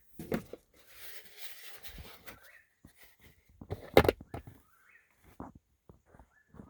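An unidentified bird calling at night: short rising, wavering whistled notes repeated several times, about two seconds apart. The caller does not think it is an owl. Sharp knocks and rustling of things being handled, with the loudest knock about four seconds in.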